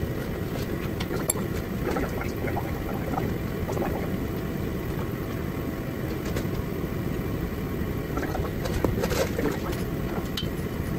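Shop heater running, a steady low noise, with a few light knocks from bolting up the bumper, the plainest about nine seconds in.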